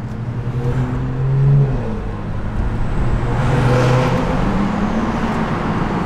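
BMW 440i's turbocharged B58 inline-six running under way, heard from inside the car: the engine note climbs, dips about a second and a half in, then builds again with a rush of road and exhaust noise near the middle.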